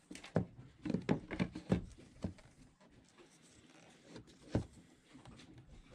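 Handling noise of a plastic VHF radio being test-fitted into a cutout in a fiberglass helm panel: a quick run of light knocks and scrapes in the first two seconds, then one more knock a little past halfway.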